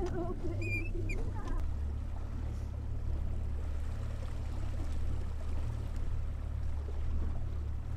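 Small outboard motor on an aluminium fishing boat, running at a low steady pace while trolling, with a steady low hum over an even wash of water and wind noise. The hum shifts slightly about a second and a half in.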